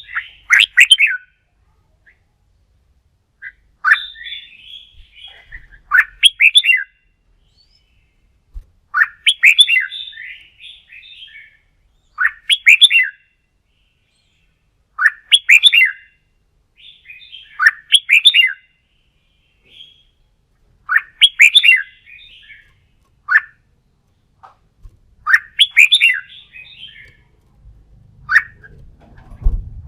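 Red-whiskered bulbul singing its loud, rapid warbled song in short phrases, repeated about every three seconds.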